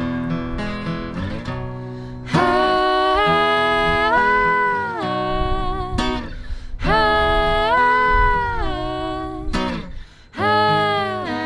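Instrumental song intro: acoustic guitar strumming under a melody line in three long phrases whose notes slide smoothly from one pitch to the next.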